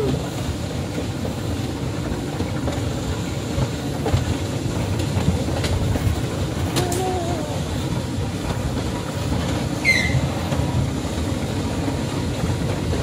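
Steady rumble of a ride car rolling along its track, with a few faint clicks and a brief high squeak about ten seconds in.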